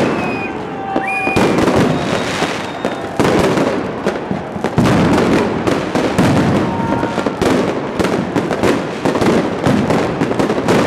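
Many fireworks bursting and crackling overhead in a dense, unbroken barrage of bangs, with brief whistling tones about a second in.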